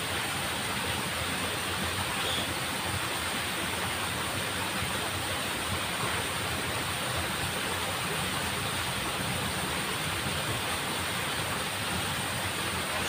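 Steady rushing of water flowing along a small ditch.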